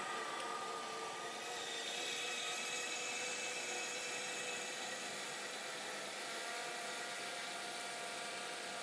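The combustion engine of a Sikorsky HO3S-1G scale model helicopter runs at idle with the rotors turning slowly on the ground. It makes a steady whir with a few faint tones that drift slightly in pitch.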